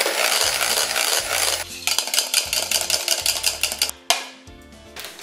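Electric hand mixer whisking fridge-cold white chocolate cream stiff in a plastic bowl, the beaters running with a fast, regular clatter in the second half. The mixer stops about four seconds in, followed by a single sharp knock.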